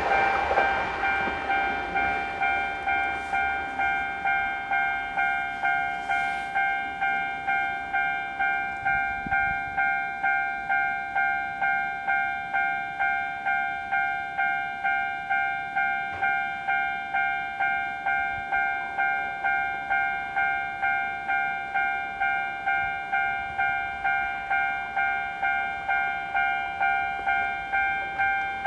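Japanese level-crossing warning bell ringing in an even electronic clang, about two strokes a second, warning that a train is approaching. The rush of a train that has just passed dies away in the first moment.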